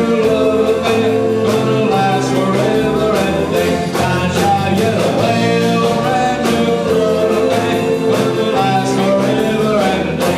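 Rock and roll music playing with a steady drum beat.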